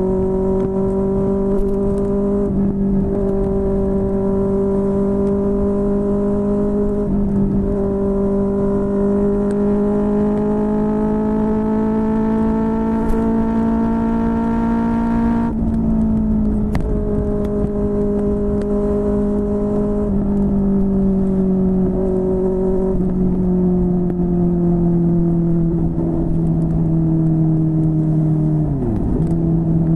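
QJMotor SRK600 inline-four motorcycle engine through a Yoshimura R11 exhaust, running under steady throttle. Its note climbs slowly, drops abruptly about halfway through, then holds level and sags briefly just before the end.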